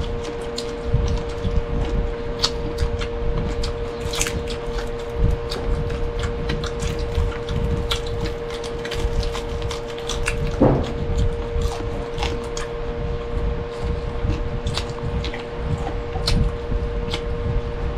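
Close-miked eating: chewing and mouth sounds with scattered short clicks, like spoon or fingers on a plate, over a steady hum.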